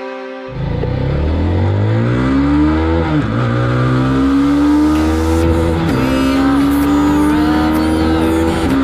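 Italika RT 250 motorcycle engine accelerating through the gears, cutting in about half a second in. The revs climb steadily and dip at each upshift, about three and six seconds in and again near the end.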